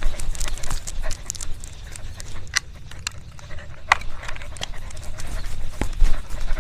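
A dog moving about, with scattered sharp clicks and taps and a steady low rumble underneath.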